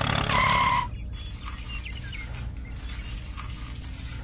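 A short, steady beep-like tone lasting about half a second, then a quieter, steady low hum with faint clicks.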